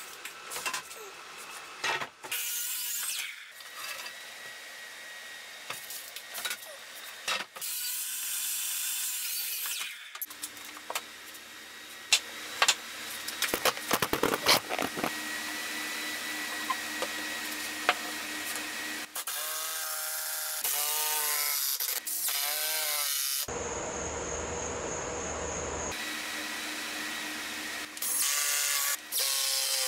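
Workshop sounds in quick succession: wooden boards knocked and handled, then a cordless drill driving screws into pine tabletop boards, its motor whining up in short repeated runs.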